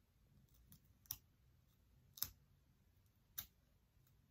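A plastic comb pulled through wig hair: three sharp clicks about a second apart, with a couple of fainter ones before them, over near silence.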